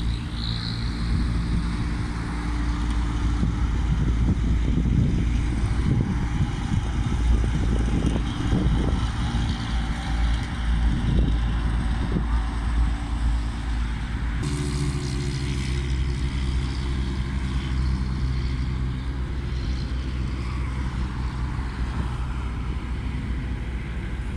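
Vehicle engine running steadily with a deep rumble; its note changes abruptly about fourteen seconds in and then holds steady.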